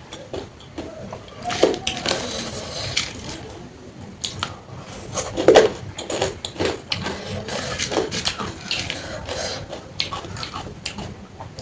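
Close-miked eating sounds: irregular wet chewing and mouth smacks of someone eating water-soaked rice (panta bhat) with crunchy sides.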